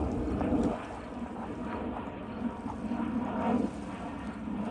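Jet engine noise from an Airbus A320-family airliner climbing out after takeoff: a steady rumbling roar that dips about a second in and swells again.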